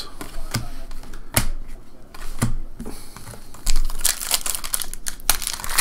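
Trading cards handled with scattered sharp clicks and snaps, then, about four seconds in, a foil card pack being torn open with a crinkling rustle.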